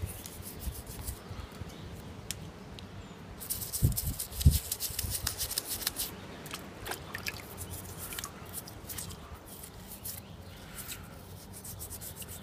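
Toothbrush bristles scrubbing a small aluminum cap in quick scratchy strokes, loosening dirt after an oxalic acid soak, with a few dull knocks about four seconds in.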